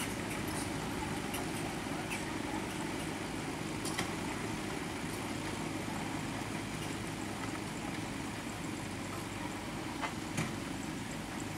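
Komatsu mini excavator's diesel engine running steadily as the machine works, with a few sharp knocks about four seconds in and twice near the end.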